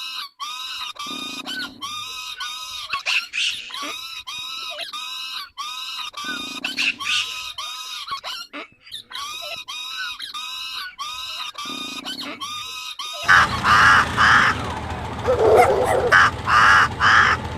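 Bird calls: bouts of rapid, chattering, arched notes repeated every few seconds. About 13 seconds in they cut abruptly to a louder, harsher animal call in short repeated pulses.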